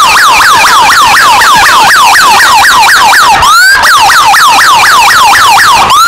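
Loud police motorcycle siren in fast yelp mode, sweeping up and down about four times a second. Past the middle it breaks off briefly with one rising sweep, then resumes, and near the end it changes to a slow rising wail.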